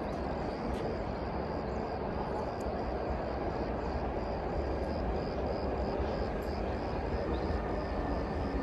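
Electric locomotive approaching along the track, a steady low rumble and hum that grows slightly louder.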